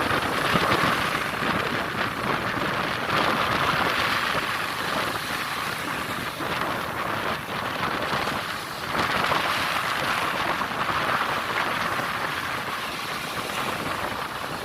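Red Sea water rushing and splashing, swelling and easing every few seconds like waves.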